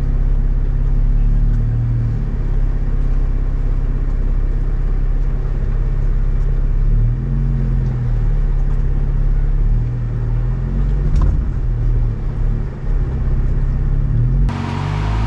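Jeep Wrangler's engine running at low revs as it crawls over rocks, its pitch swelling and dipping a little with the throttle. Near the end the sound changes abruptly to a brighter, hissier one.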